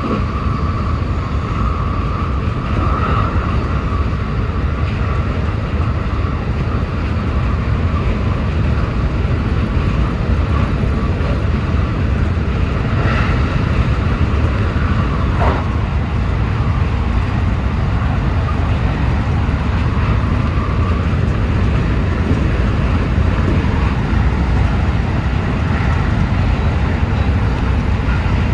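JR West 223 series electric train running fast, heard from the driver's cab: a steady rumble of wheels on rail and air rushing past, with a high hum in the first part and a single sharp tick about halfway through.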